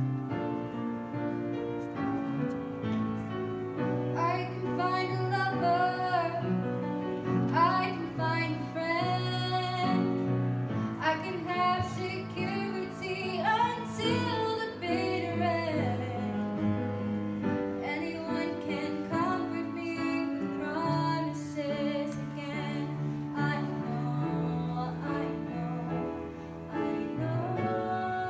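A young woman singing a solo over an instrumental backing, with long held notes that waver in vibrato.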